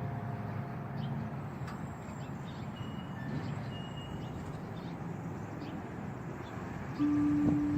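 Church bell chimes die away in the first second or so, leaving a steady background hum with a few faint bird chirps. A new bell note strikes about seven seconds in.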